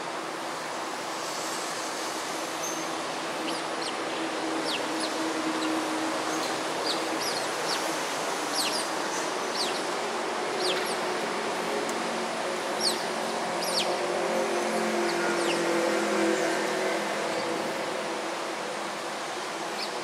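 Steady outdoor background hum, like distant city traffic, with many short, high-pitched chirps that slide downward, scattered throughout.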